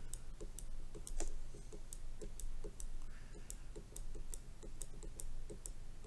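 Stylus tip tapping on a tablet's glass screen as short, quick pen strokes are drawn: a train of light, evenly spaced clicks, about three a second.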